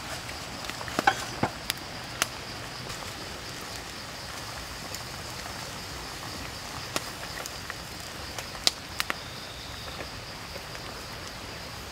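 A wok of soup simmering over a wood fire: a steady hiss with scattered sharp crackles from the fire, a few near the start and a few around nine seconds in. A faint, steady high insect drone runs underneath.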